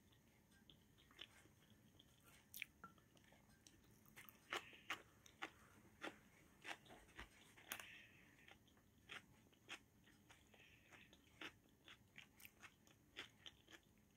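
Faint mouth sounds of a person chewing food: soft, irregular clicks and smacks, roughly one or two a second.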